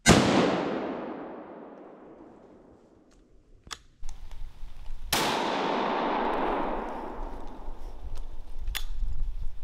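Scoped hunting rifle shot, its report echoing through the woods and fading over about three seconds. A short click follows, then a second, softer shot with its own fading echo about five seconds in.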